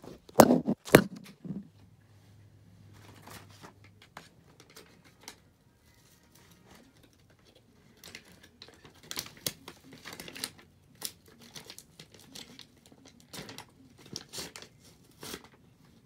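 Two knocks about half a second in, then, after a lull, tape being torn and peeled off a stick with crinkling, in irregular crackly bursts over the last half.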